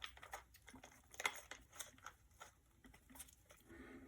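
Faint clicks and taps of a spacer being fitted into a quick-release clamp, the sharpest click a little over a second in.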